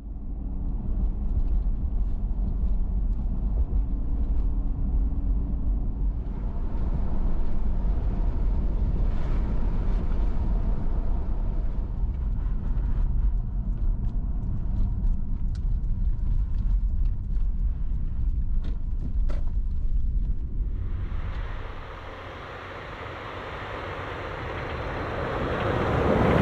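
A vehicle driving with a steady low rumble of engine and road noise. About 21 seconds in the rumble falls away and a rushing hiss takes over, growing louder near the end.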